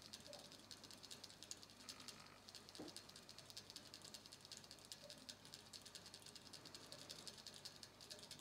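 Faint, fast ticking of a rabbit licking at the metal spout of a hanging water bottle, the drinker's ball valve rattling with each lick, with a short pause about two seconds in.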